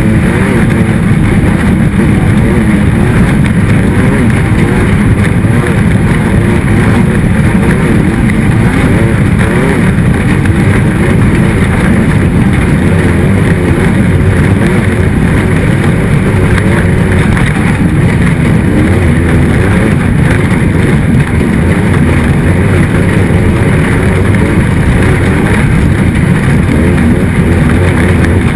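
Racing engine running hard and loud without a break, its pitch wavering up and down as the throttle changes.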